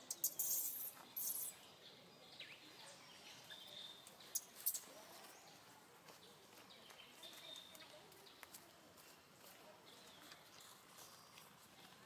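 Outdoor ambience with faint bird and insect calls, broken by a few short, sharp, high-pitched sounds in the first second and a half and again about halfway through.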